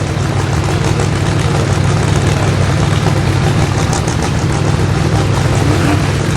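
Sauber Mercedes C9's turbocharged 5.0-litre V8 idling with a steady, deep rumble.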